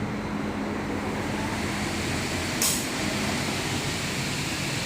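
Double-head aluminium cutting saw running with a steady machine noise, with a short burst of air hiss from its pneumatic system about two and a half seconds in.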